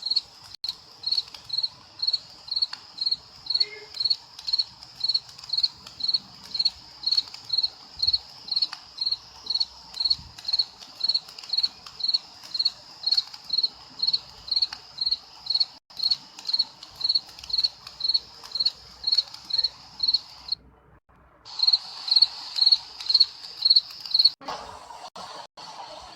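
A cricket chirping steadily, about two chirps a second, with a break of about a second late on. Near the end it gives way to a different, steady noise.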